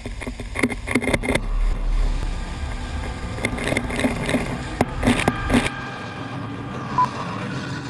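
Wind rushing over an action camera's microphone, with water spray and irregular cracks and knocks as a wakeboard is towed fast through marsh reeds. The low rumble drops out about six seconds in, and a short beep sounds near the end.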